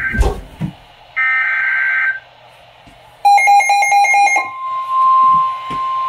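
A Midland NOAA weather alert radio receiving a severe thunderstorm warning: a one-second burst of buzzy two-tone SAME data, a rapid string of about ten electronic beeps, then the steady high 1050 Hz warning alarm tone, which begins a little past halfway. A few knocks from the radio being handled or the camera bumping come at the very start.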